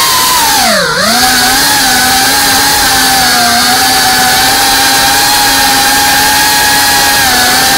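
FPV drone's brushless motors whining at speed. The pitch dips sharply and comes back up about a second in as the throttle is cut and reapplied, then holds steady.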